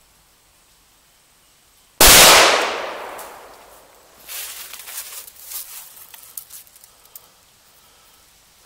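A single rifle shot from a Yugoslavian SKS (7.62×39mm) about two seconds in: a sharp, very loud crack that dies away over about two seconds.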